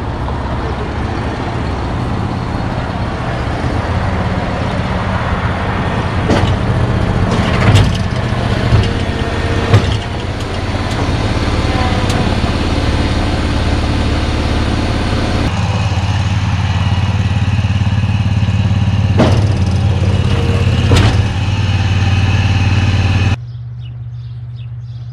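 Ride-on zero-turn mower's engine running as it is driven up the ramp onto an aluminium trailer, with sharp metal clanks from the ramp and deck a few times, the engine note changing about two-thirds of the way in. The mower engine shuts off suddenly near the end, leaving a lower steady engine hum.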